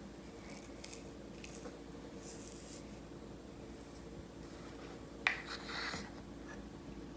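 Quiet kitchen with a faint steady hum and soft handling sounds. About five seconds in comes one sharp tap and a short scrape as a metal spoon is taken up in a glass bowl of mashed avocado.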